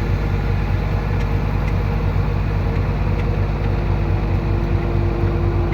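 Heavy diesel engine of an earthmoving machine (bulldozer or excavator) running steadily at a low, even speed. A steady whine shifts lower in pitch about four seconds in.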